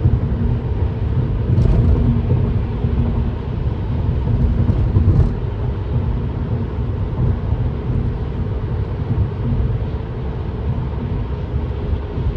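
Road and engine noise heard inside a car driving at highway speed on a wet road: a steady low rumble with a faint hum, and a few light clicks.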